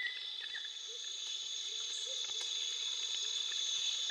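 Steady high-pitched shrill of an insect chorus, with a few faint short chirps here and there.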